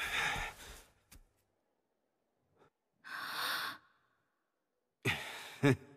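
Heavy breathing of a wounded, exhausted man: three long, deep breaths, one at the start, one about three seconds in and one near the end, with silence between them.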